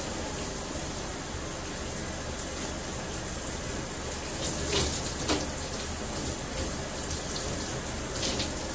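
Water running steadily from a bathtub tap and splashing as hair dye is rinsed out of hair, with a few louder splashes near the middle and near the end.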